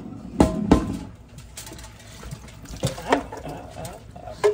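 Metal frying pan knocking against a plastic colander as browned ground beef is tipped into it, with two sharp knocks about half a second in. A spatula then scrapes the meat out of the pan, with a few more knocks around three seconds in.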